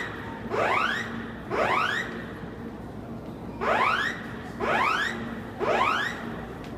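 Station fire-alarm evacuation signal: a rising whooping sweep tone repeated about once a second, with a pause of about two seconds after the first few whoops before three more.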